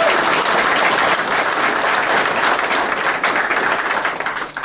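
Audience applauding: dense clapping that thins out and stops near the end.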